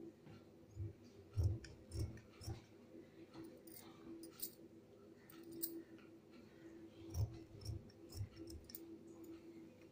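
Scissors cutting through doubled net fabric: irregular snips and blade clicks, with a few soft knocks of the blades and hand against the cloth, over a faint steady hum.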